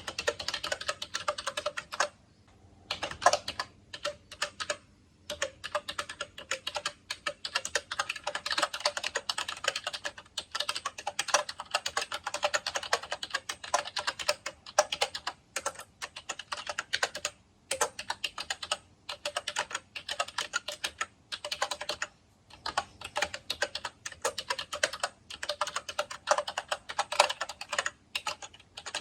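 Continuous typing on an Actto Retro Mini B303 Bluetooth keyboard: rapid runs of key clicks, broken now and then by pauses of about a second.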